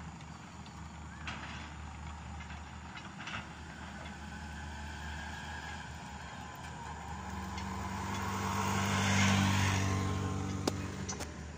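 A motor vehicle driving past on the road, its engine and tyre noise swelling to a peak about nine seconds in and then fading. Two sharp clicks sound near the end.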